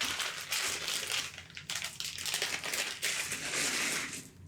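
Plastic bags crinkling steadily as they are handled and rummaged through, stopping just before the end.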